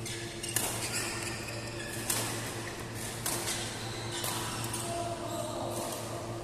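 Badminton rackets striking a shuttlecock in a rally, five sharp hits about a second or so apart, echoing in a large hall, with a steady low hum underneath.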